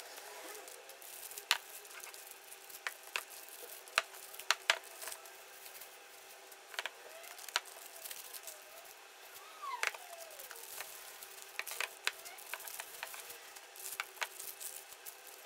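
Plastic sleeves and paper wrapping crinkling and rustling as new camshafts are unwrapped by hand, with many sharp crackles scattered throughout.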